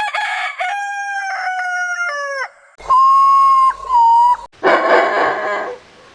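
A rooster crowing: one long drawn-out crow that falls away at the end, followed by two more long held calls, the first clear and whistle-like, the second hoarse.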